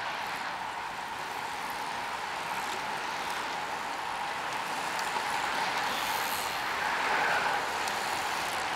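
A large bunch of road bicycles riding past close by: a steady whir of tyres on asphalt and freewheels. It grows gradually louder as the denser part of the group passes, about seven seconds in.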